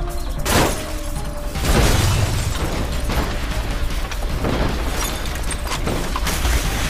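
Dramatic music over a car crash: a sharp impact about half a second in, then heavy low rumbling and more crashes as the sedan tumbles down the bank into the bushes.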